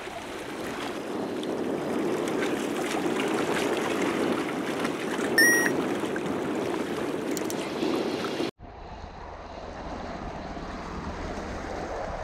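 Sea water washing and lapping against a seawall, with some wind on the microphone. A short, high-pitched tone sounds once about five and a half seconds in, and the wash breaks off abruptly about eight and a half seconds in, then carries on quieter.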